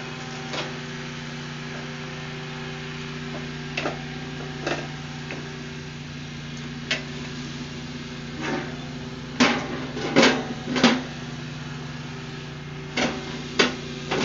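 Metal clunks and knocks of a small Char-Broil portable gas grill being handled: about a dozen sharp knocks spread out, the loudest three close together between nine and eleven seconds in.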